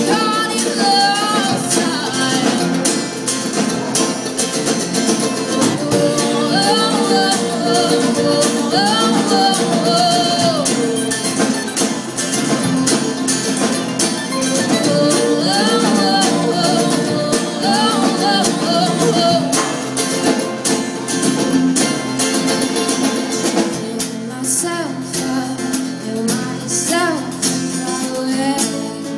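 Live folk band: a woman sings lead over two strummed acoustic guitars and a mandolin. The singing drops out for a few seconds about two-thirds of the way through while the instruments play on.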